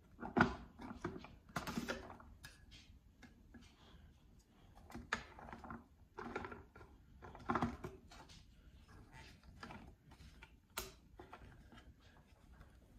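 Clear plastic bowl and lid of an Oster food processor clicking and clattering as they are handled and fitted onto the base, in scattered irregular clacks, one of the sharpest coming near the end.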